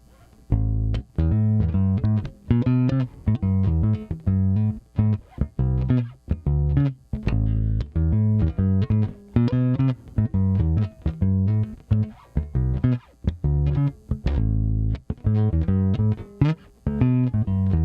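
Nordstrand Acinonyx short-scale electric bass played through its soloed vintage-style single-coil neck pickup on the first tone setting. It plays a busy riff of plucked notes, with one longer held low note about three-quarters of the way through.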